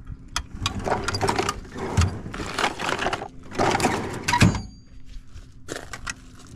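Metal hand tools clinking and clattering as they are handled and moved about. There are two main bouts of rattling, a dull knock about four and a half seconds in, and a short clatter near the end.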